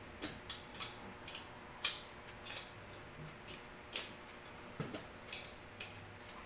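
A dozen or so light, irregular metallic clicks and taps as the welding tip is worked off an oxyacetylene torch handle at the bench.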